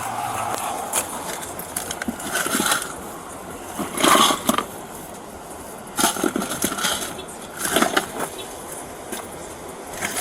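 Irregular rustling and scraping noises with a few louder knocks, over a steady background hiss.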